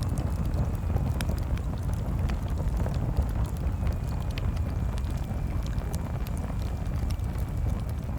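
Bonfire burning: a steady low rumble of flames with frequent sharp pops and crackles of burning wood. A faint thin whistle comes in about halfway through.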